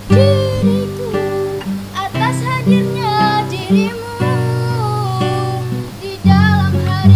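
Acoustic guitar strummed in steady chords, with a voice singing over it.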